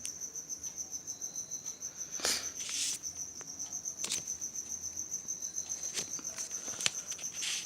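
A cricket chirping in the background, a steady high pulsing trill. A few clicks and short rustles from wires being handled and connected, the loudest about two seconds in.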